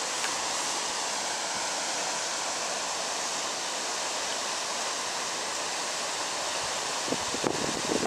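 Steady rushing noise of running water. A few knocks and rustles come near the end.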